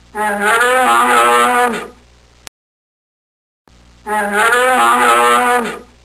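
A hoofed animal's long lowing call, sounding twice, each about a second and a half long and dropping in pitch at the end. The second call is an exact repeat of the first, with dead silence between them.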